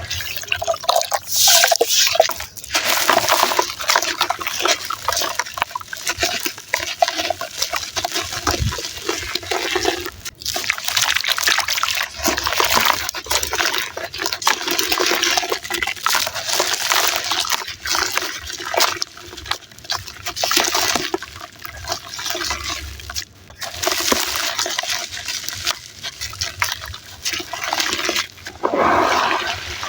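Gritty red sand and charcoal being crumbled in foamy water: wet sloshing and squishing with dense, irregular crackling and crunching, broken by a couple of short pauses.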